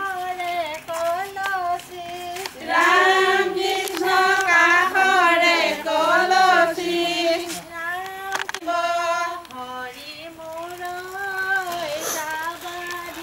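Women's voices singing a traditional Assamese ceremonial song together, a high melody rising and falling, loudest from about three to seven seconds in.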